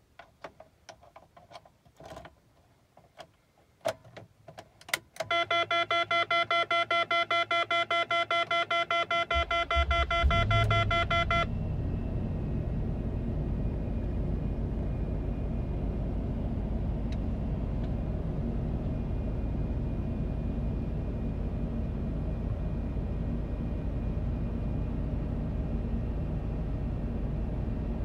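A few clicks from the key and switches, then a rapid repeating dashboard warning chime. About ten seconds in, the 2001 Range Rover's V8 cranks and catches on a cold start with a brief rise in revs. Once the chime stops, the engine settles into a steady idle.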